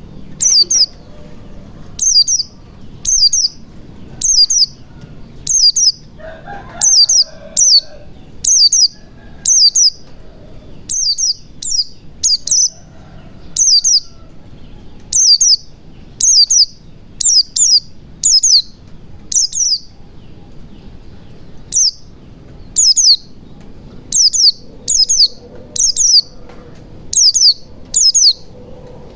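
Pleci (white-eye) calling: short, high, quickly falling chirps repeated about once or twice a second, with brief gaps.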